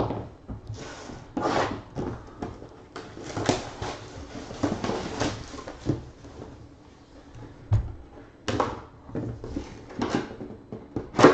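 Plastic shrink wrap crinkling and tearing as it is stripped off a cardboard card box, with the box handled and set down with a thump about eight seconds in.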